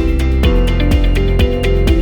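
Background music: a steady instrumental track with plucked guitar-like notes on a regular beat.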